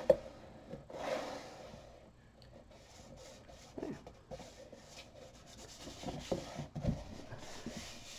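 Black cardstock of a paper explosion box being pressed and shifted by hand on a cutting mat: dry rubbing and rustling of card, with a sharp click at the start and a dull knock about seven seconds in.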